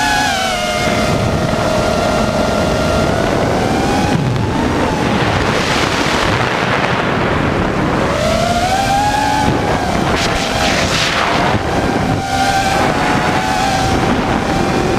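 FPV quadcopter's electric motors whining, the pitch gliding up and down with throttle changes, over a steady rush of wind noise.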